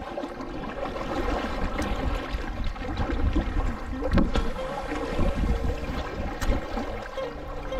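Wind buffeting the microphone over water slapping and splashing around a small boat, with two sharper splashes or knocks about four and six and a half seconds in.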